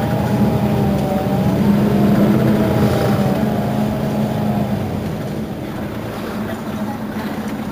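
Mercedes-Benz Citaro city bus's diesel engine idling at a stop, a steady low hum. A wavering higher tone rides over it and fades about five seconds in.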